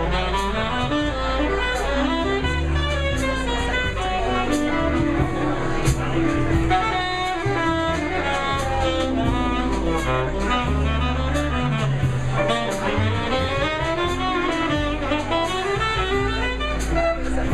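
Jazz music: a saxophone melody over a moving bass line and drums keeping a steady beat.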